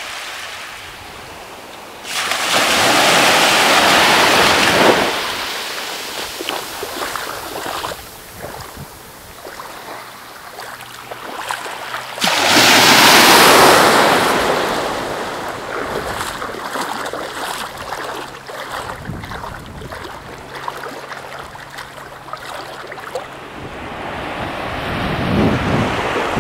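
Small waves lapping and washing up a sandy beach, with two louder surges of wash that start suddenly about two seconds in and about twelve seconds in, each fading over a few seconds. Some wind on the microphone.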